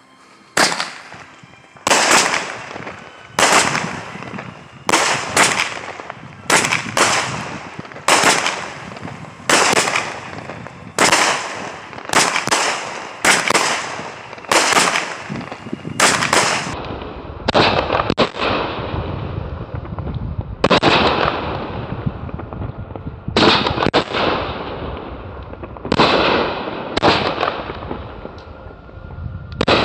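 Consumer aerial firework shells going up and bursting overhead one after another in a finale. Sharp bangs come about once a second, then thin out to one every couple of seconds in the second half.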